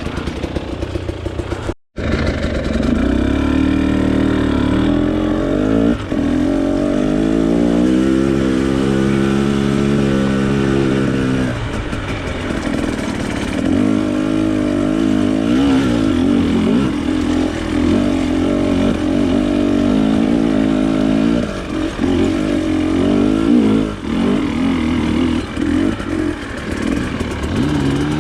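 Off-road trail motorcycle engine under way, its revs rising and falling repeatedly as the throttle is worked. It holds high revs for a few seconds around the middle, then drops and climbs again.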